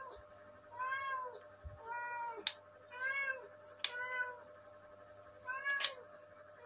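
A cat meowing over and over, five short rising-and-falling meows about a second apart, with a few sharp clicks in between.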